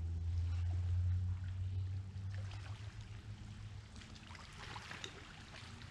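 Wind buffeting the microphone in a low rumble, strongest in the first two seconds and easing after. Light rustling and clicks come in the second half as a fishing rod is lifted from its holder.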